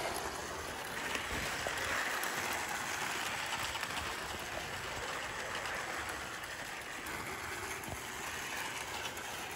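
Model 4-4-2 Atlantic steam locomotive running around a circle of track: a steady whir from its electric motor and wheels rolling on the rails, with a few light clicks, a little louder for a few seconds after the start.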